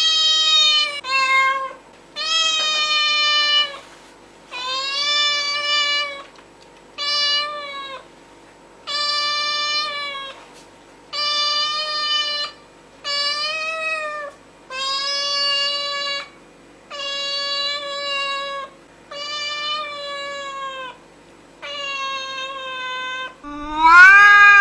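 Domestic cats meowing: a long series of drawn-out meows, about one every second and a half, each lasting about a second. A louder meow near the end rises and then falls in pitch.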